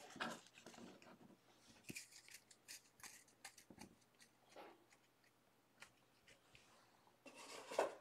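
Near silence broken by a few faint clicks and rustles of trading cards and hard plastic card holders being handled, mostly in the first half.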